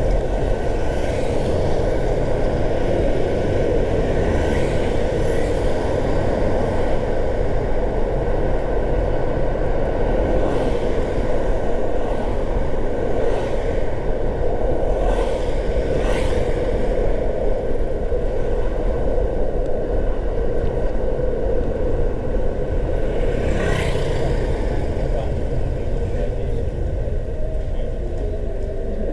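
A car driving on city roads: steady rumble of tyres and engine, with several brief whooshes, the loudest near the end.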